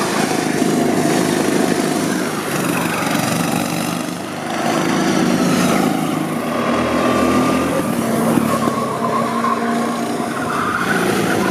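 Small petrol engines of two rental go-karts running on the track, their pitch rising and falling as the drivers accelerate and lift, with a brief dip in loudness about four seconds in.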